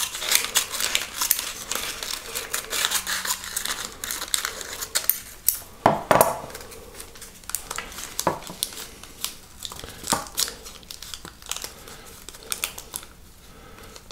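Scissors snipping through brown wrapping paper with close, crackly clicks, then the paper crinkling and rustling as the wrapper end is folded by hand. Two sharp knocks about six seconds in, after which the handling noise is sparser.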